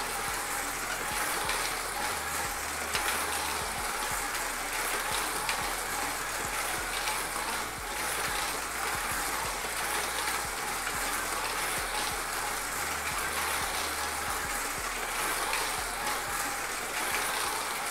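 1/32-scale Policar slot cars lapping the track, their small electric motors and gears whirring steadily.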